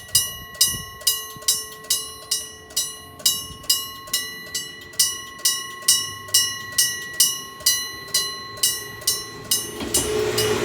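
Railroad crossing warning bell sounding its steady 'kan-kan' at a little over two strokes a second. Near the end a train's running noise rises in under it.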